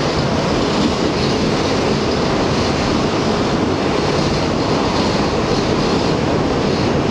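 R62A subway car running at speed through a tunnel, heard from inside the car: a loud, steady noise of wheels on rails.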